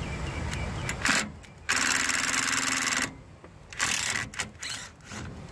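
Cordless drill-driver spinning a screw on the bearing bracket of a blower wheel: a short burst about a second in, a steady run of about a second and a half, then a few brief bursts near the four-second mark.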